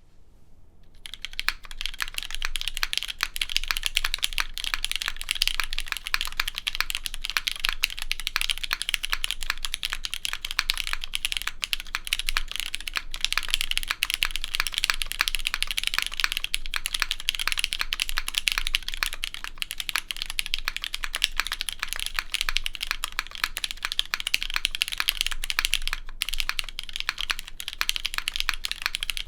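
Steady, fast typing on a Duck Eagle v3 60% top-mount mechanical keyboard with linear Cherry MX Black switches on an aluminum plate. A dense run of keystrokes begins about a second in and continues without a break.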